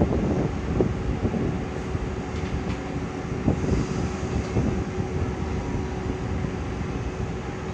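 Taiwan Railway E300-class electric locomotive standing with its equipment running: a steady whirring hum with one faint steady mid-pitched tone. Low, uneven wind rumble on the microphone over it.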